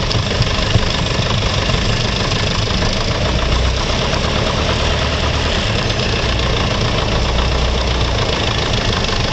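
Piper Cherokee 140's four-cylinder Lycoming engine and propeller running at low taxi power, heard from inside the cockpit as a steady drone.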